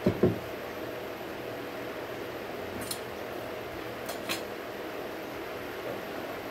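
Induction cooktop's cooling fan running steadily. Right at the start there are two low thuds as a steel bowl is set down on the counter, then a few light clinks of small steel dishes about three and four seconds in.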